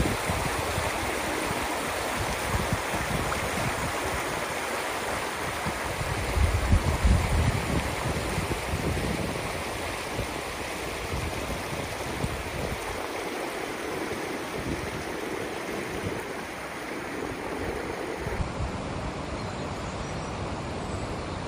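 Floodwater flowing fast, a steady rush of running water from the overflowing river, with wind buffeting the microphone a few times.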